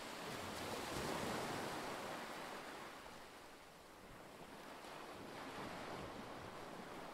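Ocean surf: waves breaking and washing over a rocky shore, a steady rush that swells about a second in, eases off around the middle and builds again.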